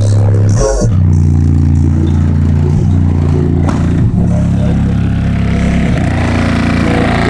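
Car audio subwoofers in a box ported at 26 Hz playing bass-heavy rap music loud, with deep held bass notes changing pitch in steps, and some rattling on top.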